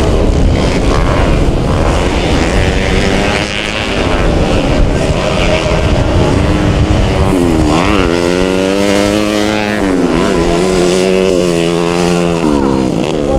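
Four-stroke grasstrack racing motorcycle engines running hard at full throttle. In the second half one engine stands out clearly, its pitch rising and falling several times as it revs up and eases off.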